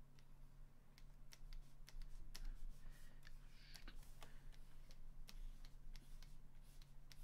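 Irregular light clicks and taps of a drawing stylus tip on a tablet screen as lines are inked, over a steady low hum.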